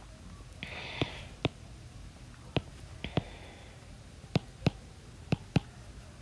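Stylus tapping on a tablet screen during handwriting: a run of irregular sharp clicks, about eight, with a brief soft scratchy hiss just before the first second.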